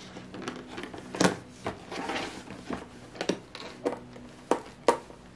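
Packaging being handled while a hand blender is taken out: several sharp knocks with some rustling between them.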